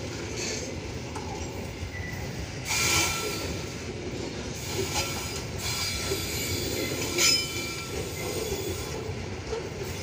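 Long freight train of open-top wagons rolling past, a steady rumble of wheels on rail with brief high-pitched squeals from the wheels about three seconds in, again around five seconds, and loudest near seven seconds.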